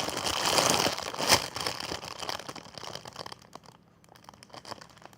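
Close-up crinkling and rustling as a foam squishy toy is handled and squeezed, busiest in the first two seconds with one sharper crackle, then thinning out to a few faint crackles.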